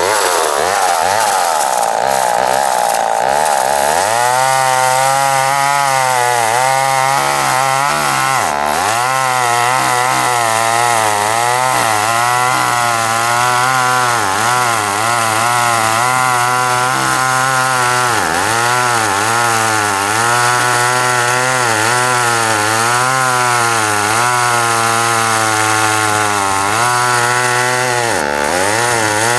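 Vintage Homelite two-stroke chainsaw running at full throttle, its high steady whine pulling down after about four seconds as it bites into a cherry log. Its speed then wavers up and down under cutting load, dipping sharply three times.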